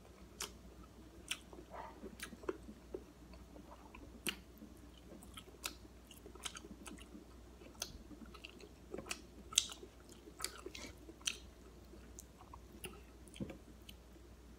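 A person chewing and eating food by hand, with faint, irregular soft clicks and smacks of the mouth.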